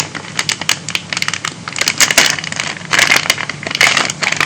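Kit parts and their packaging being handled by hand: a run of quick clicks and crinkling crackles, thickest about two and three to four seconds in.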